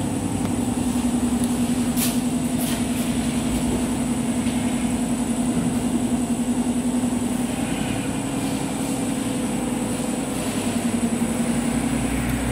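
Ducati 749's 90-degree L-twin engine idling steadily, with an even, lumpy pulse. A couple of light clicks sound about two seconds in.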